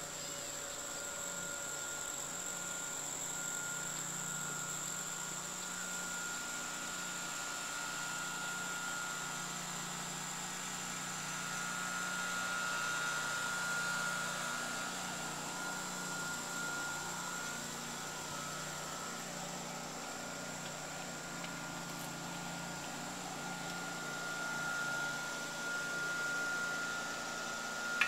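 Steady outdoor background noise: a low hum and hiss with a thin, steady high-pitched tone that swells a little and fades at times.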